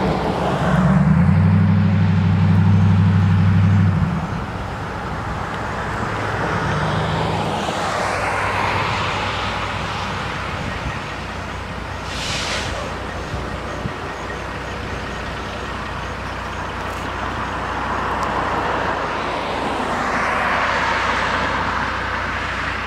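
Road traffic going by: a deep engine drone for the first few seconds, then cars and a tractor-trailer passing, their tyre noise swelling and fading, loudest near the end as a car goes past. A short hiss comes about twelve seconds in.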